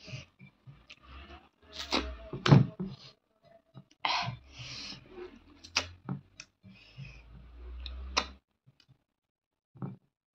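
Eating by hand: fingers mixing and scooping food on a ceramic plate with a soft scraping, amid sharp mouth clicks and chewing. It goes mostly quiet near the end.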